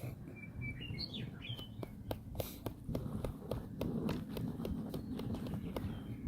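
A bird chirping with a few short whistled notes in the first second and a half, then a run of sharp irregular clicks and taps over a low steady rumble.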